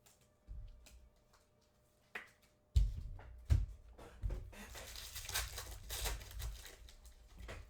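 Two quick knocks, then a foil trading-card pack wrapper being torn open and crinkled for a few seconds.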